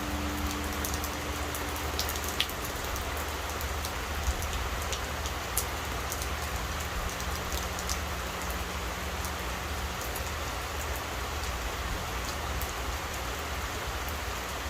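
Steady rain falling, with scattered sharp drip ticks, while the low hum of a struck Korean temple bell dies away: its higher note fades in the first couple of seconds and the deeper note lingers until about three quarters of the way through.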